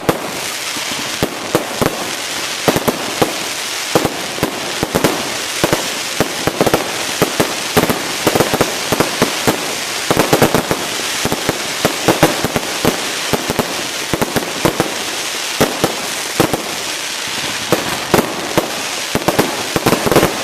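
Fireworks display going off: many sharp bangs at irregular intervals, at times several a second, over a continuous noisy background.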